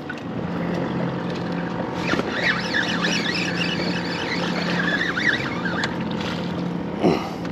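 Water slapping and sloshing against the hull of a small boat, with wind on the microphone. About two seconds in, a run of high chirping calls comes and goes over it for a few seconds.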